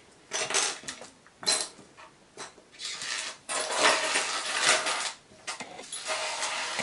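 Small plastic and metal mounting parts for a Roman blind (clips, brackets, screws, wall plugs) handled and clattering on a tabletop: separate clicks and taps at first, then longer scraping as the parts are pushed across the table.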